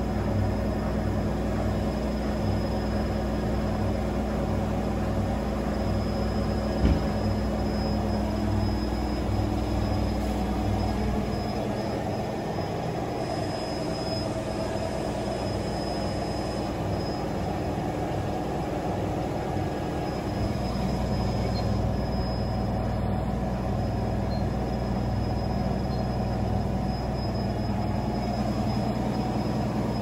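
Front-loading washing machines on a fast spin: a steady motor hum and whine over the drum's low pulsing rumble. There is a single knock about seven seconds in, and the deep rumble eases for several seconds midway.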